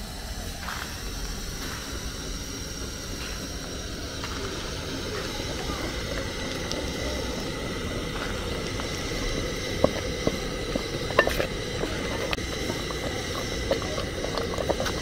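Wooden stirring stick working thick banana pap in an aluminium pot over a gas burner, against a steady hiss. From about ten seconds in, a few sharp knocks as the stick strikes the pot.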